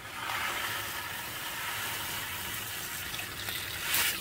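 Coarse salt poured from a plastic bag into a pot of water: a steady hiss of grains streaming into the water, with a louder rush near the end.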